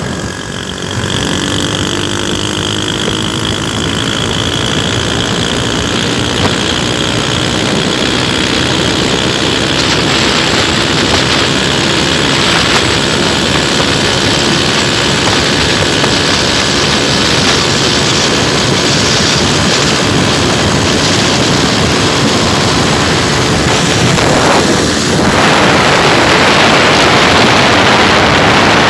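Motorcycle riding at speed: the engine climbs in pitch as it accelerates over the first few seconds, then is drowned by loud wind rushing over the microphone, which grows stronger near the end.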